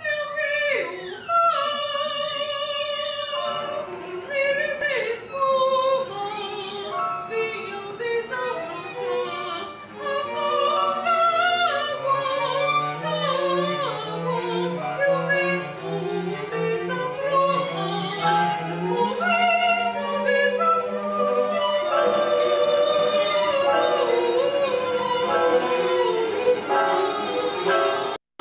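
Soprano singing with live string accompaniment of violin and cello in a contemporary classical chamber piece. A low cello line holds long notes under the voice through the middle. The sound cuts out for a moment right at the end.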